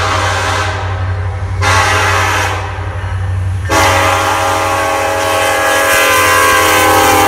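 Loud locomotive air horn, which the uploader takes for a Nathan K5LLA five-chime horn, sounding a chord of several tones: a blast that stops about a second in, a short blast, then a long blast from about halfway through. A steady low rumble of the train runs underneath.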